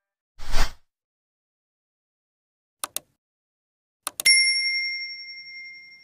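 Subscribe-button animation sound effects: a short whoosh, then two mouse clicks, then two more clicks and a notification bell ding that rings on and slowly fades.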